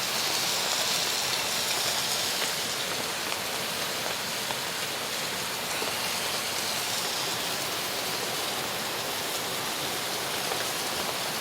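Ribeye steaks sizzling in a new, factory pre-seasoned pan: a steady, even frying hiss.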